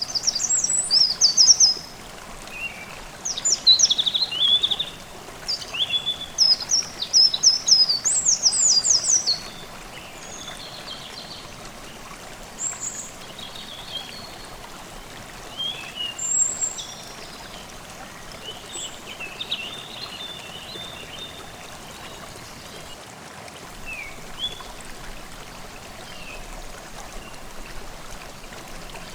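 Forest stream running steadily, with songbirds singing over it: a run of loud, rapid, high-pitched song phrases through the first ten seconds or so, then only scattered short calls.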